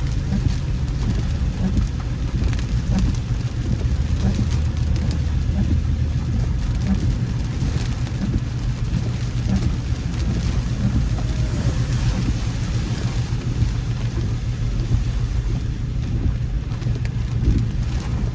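Rain falling on a moving car, with a steady low rumble of road and engine noise underneath, while driving through a thunderstorm.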